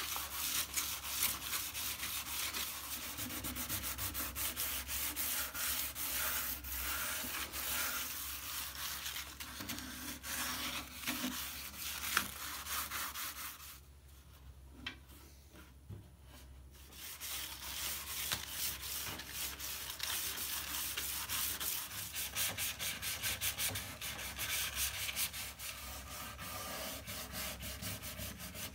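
Sandpaper rubbed by hand in rapid back-and-forth strokes over a cello's varnished wooden body, a light scuff-sanding so the next coat of finish will stick. The strokes stop for a few seconds about halfway through, then start again.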